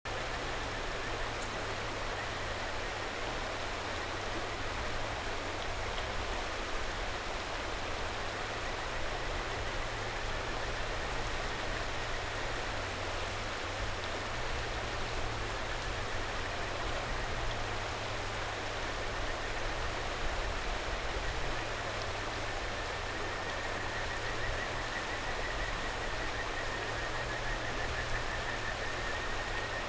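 A mountain stream rushing steadily, with a faint high warbling trill of kajika frogs (Buergeria buergeri) calling over it, clearer near the end.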